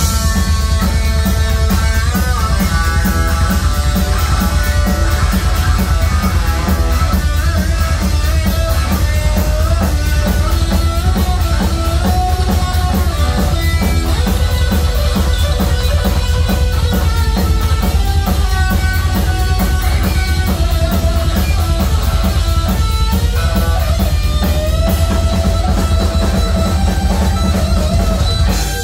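Heavy metal band playing live and loud, with no singing: an electric guitar lead with bent notes over bass guitar and a fast, steady drum beat.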